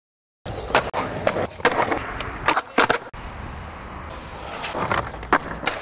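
Skateboard on paving: sharp clacks of the board hitting the ground, several in quick succession after about half a second of silence, then the steady rumble of its wheels rolling, with two more clacks near the end.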